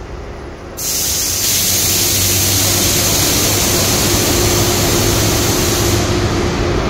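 Running noise of a train, a loud steady rush that comes in suddenly about a second in, over a low rumble and a faint steady hum.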